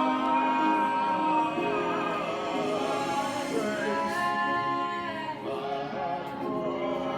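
Music with operatic singing: long held notes, some wavering with vibrato.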